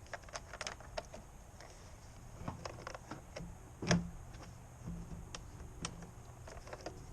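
Scattered light clicks and rattles of wiring and small door parts being handled, with one louder knock about four seconds in.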